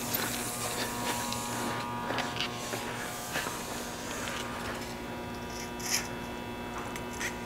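A steady electrical buzz with several overtones, and scattered short clicks and rustles over it, with a brief hiss in the first second and a half.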